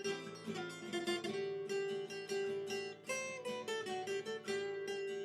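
Background music: acoustic guitar plucking a melody over a steady rhythm.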